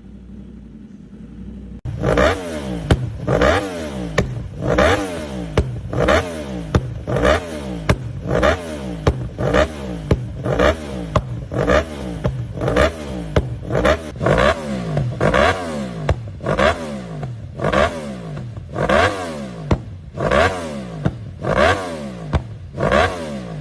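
Sport motorcycle engine with a loud exhaust revved in quick throttle blips, about one a second, each rev climbing sharply and dropping back. It starts about two seconds in after a low idle.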